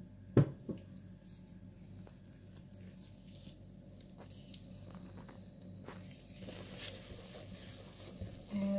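A single sharp knock about half a second in, then faint scraping and soft clicks of a silicone spatula stirring liquid batter in a metal bowl, over a low steady hum.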